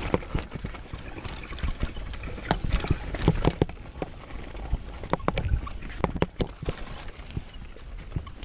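Mountain bike riding down a rough dirt trail: irregular clattering knocks from the tyres, chain and frame over bumps and roots, with a low rumble of wind on the microphone.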